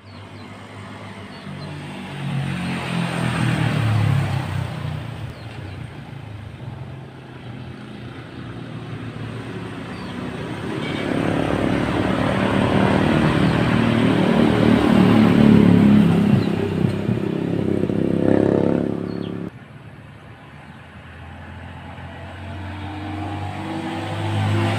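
Motor vehicle engines passing close by, swelling and fading in pitch and loudness. Near the two-thirds mark the sound drops off abruptly, then builds again as another engine approaches.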